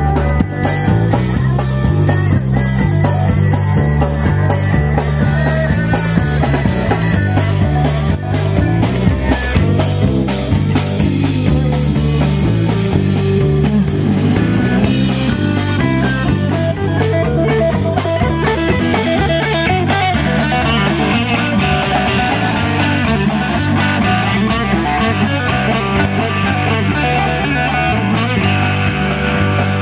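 Live rock band playing: electric guitar over a repeating bass line and drum kit.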